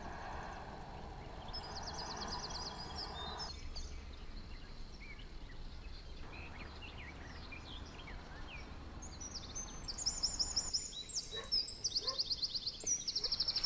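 Small birds singing and calling, with short chirps and fast high trills that come thickest near the end. Under them is a low steady rumble and faint hiss, which drop away about eleven seconds in.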